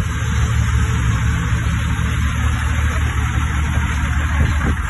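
Diesel semi-truck engine idling: a steady low rumble under an even hiss.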